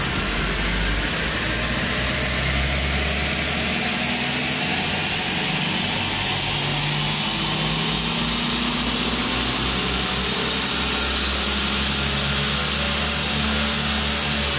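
Toyota Hilux 3.0 D-4D four-cylinder turbodiesel, fitted with a diesel/CNG dual-fuel kit, accelerating under load on a chassis dynamometer. The engine note and a whine rise steadily in pitch as engine speed climbs from about 1,200 to about 4,500 rpm.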